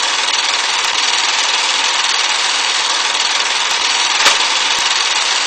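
Old-film noise effect: a steady hiss with a few scattered clicks.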